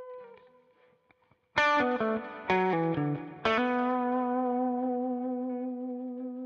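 Telecaster-style electric guitar playing a blues lick. After a short pause, a quick run of picked notes steps downward, then one note is struck about three and a half seconds in and held ringing until it is cut off near the end.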